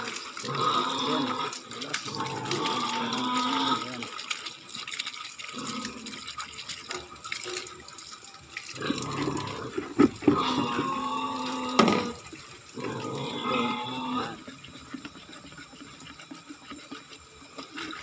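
Water running from a faucet and splashing into plastic containers as a chicken drinker is rinsed out and a jug is filled. Two sharp knocks come about ten seconds in and again near twelve.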